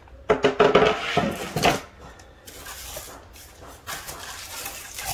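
Unpacking clatter: a wooden shelf board knocked and lifted out of its shipping box, with plastic wrap crinkling and cardboard and foam scraping. A loud burst of knocks and rustles in the first two seconds, then quieter rustling.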